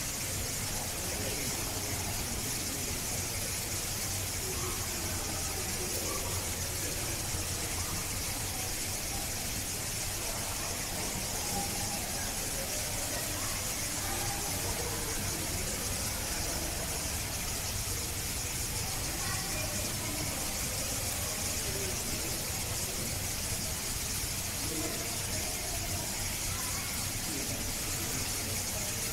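Steady high-pitched hiss over a low hum, with faint scattered murmur of distant people's voices.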